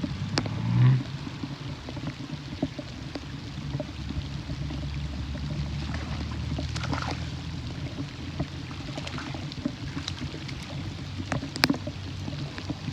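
Light rain falling in scattered drops over a steady low rumble, with a dull thump about a second in and a sharp click near the end.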